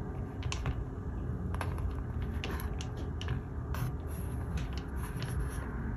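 Scattered light clicks and taps of small objects being handled, about one or two a second, over a low steady rumble.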